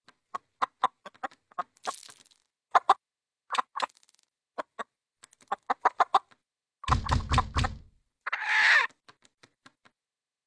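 Cartoon rooster sound effects: a run of quick pecking taps and short clucks, then a heavy thump about seven seconds in, followed by a short noisy burst and a few last taps.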